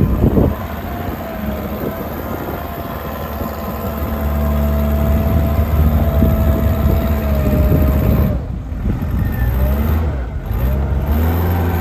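Diesel engine of a compact JCB Midi CX backhoe running steadily, a higher whine held over the engine note; the engine note drops briefly and comes back up twice in the second half. The seller says the engine sounds good.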